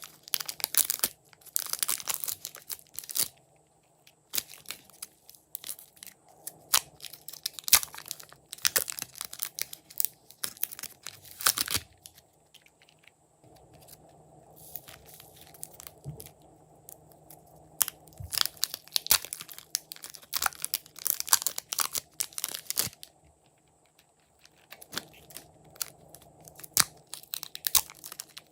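Glossy slime being squished, stretched and folded by hand, with bursts of sticky crackling and popping that come in spells of a few seconds between short quiet pauses.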